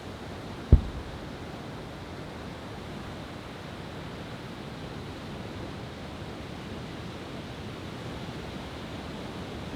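One deep boom from a large aerial firework shell about a second in, sharp and much louder than the rest, fading fast. A steady rushing noise like surf runs under it.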